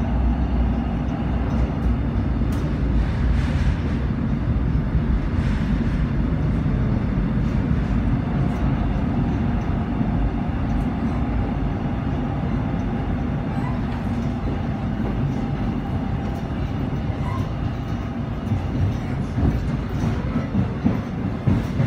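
Seoul Line 1 subway train running underground, heard from inside the car: a steady rumble of wheels on rail with a faint running whine. A few sharper clacks come near the end.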